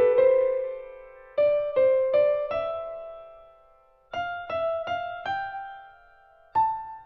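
Background piano music: short groups of gently struck single notes that ring and fade, with brief pauses between the phrases.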